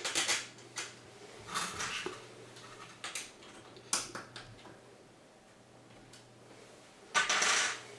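Small metal clicks and scrapes of screws and washers being handled and set into a 3D-printed plastic bracket, with a louder half-second scrape about seven seconds in.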